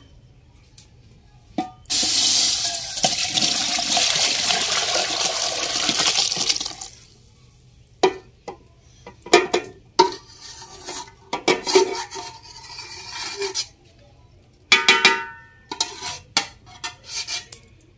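Boiled milk pouring from an aluminium pot into a larger aluminium pot for about five seconds. Then a metal spatula scraping and clinking against the emptied pot as the thick cream is scraped out.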